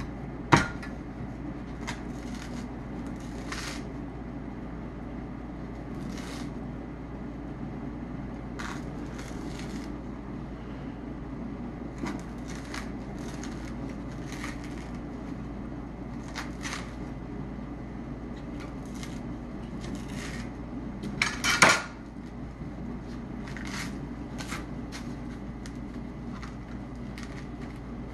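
Kitchen knife cutting and scraping into the fibrous husk of a young coconut, with scattered short scrapes and taps against the cutting board. A louder clatter of knocks comes about three-quarters of the way through.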